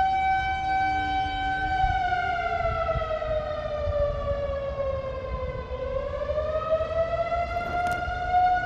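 Civil-defence-style warning siren sounding a steady wail, then sliding down in pitch over a few seconds and climbing back up to the same steady tone, over a low rumble.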